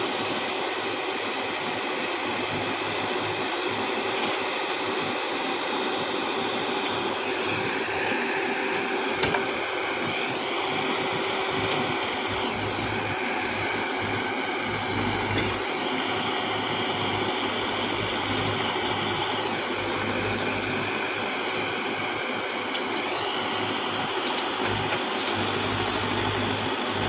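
Terex backhoe loader's diesel engine running steadily as its rear arm digs soil and swings loads into a tractor trolley, with a high whine that steps up and down in pitch several times as the hydraulics work.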